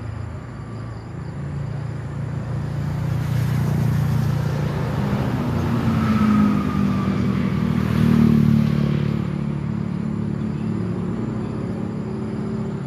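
Motor vehicle engine and road noise, growing louder through the middle and easing off toward the end.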